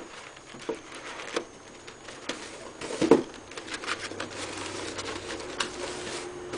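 Light, scattered taps and rustles of folded cardstock and poster board pieces being handled, as the paper puzzle box is opened and closed.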